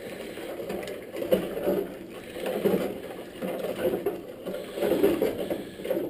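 Cooked grain mash being stirred with a long-handled spoon in a large metal stockpot: liquid sloshing and swirling in waves about once a second, the settled grain being stirred up from the bottom.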